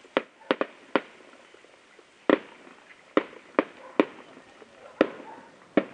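Aerial firework shells bursting, about ten sharp bangs at irregular intervals, each trailing off briefly.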